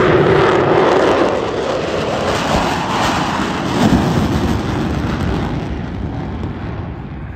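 Jet noise from Blue Angels F/A-18 Super Hornets flying past: a loud rushing sound that swells briefly about four seconds in, then fades away toward the end, the high end dying off first.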